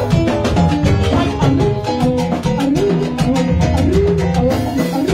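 Cuban salsa band playing live and loud. A drum kit and a güiro keep a steady, driving rhythm under melodic lines.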